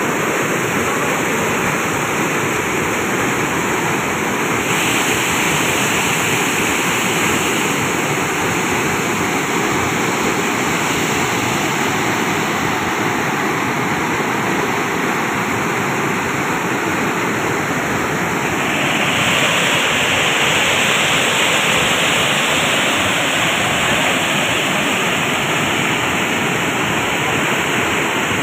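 Floodwater spilling over a concrete dam weir and churning into white water below, a steady rushing that grows a little louder and brighter about two-thirds of the way through.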